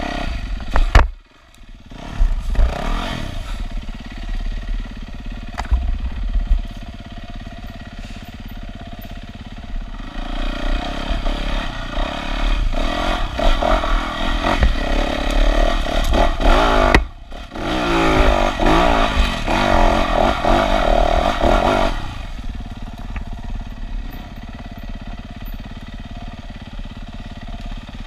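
Yamaha WR450F four-stroke single-cylinder enduro bike engine on a dirt trail, rising and falling with the throttle. A sharp blip drops away suddenly about a second in. It revs harder through the middle with a brief cut-off about two-thirds of the way through, then runs lower and steadier near the end.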